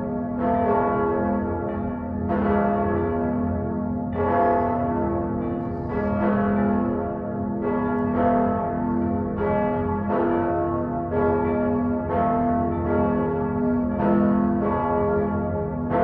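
Church bells ringing, with a new stroke about every second; each note rings on into the next, and the pitches change from stroke to stroke.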